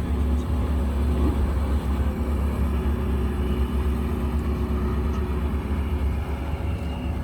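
Porsche 918 Spyder's 4.6-litre V8 idling with a steady low rumble, the engine speed holding even and not revved.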